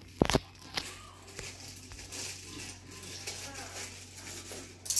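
Stainless-steel bowls and containers clinking as they are handled, with the sharpest clinks just after the start and near the end, amid light crinkling of foil.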